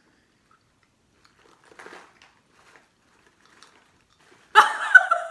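Faint chewing of a crunchy fried-corn snack (Boy Bawang), then a sudden loud, short pitched outburst near the end.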